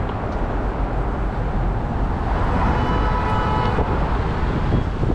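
City street traffic noise: a low, steady rumble of car and road noise. Partway through, a faint steady high tone sounds for about a second.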